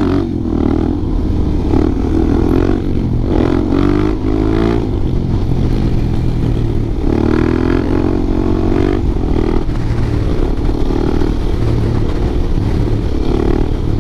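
Suzuki DR-Z400SM single-cylinder supermoto engine being ridden hard, its pitch rising repeatedly through the gears with brief breaks at the shifts.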